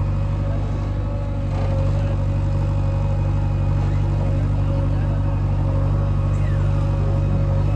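Heavy diesel engine running steadily at an even pitch, as on a backhoe loader at work.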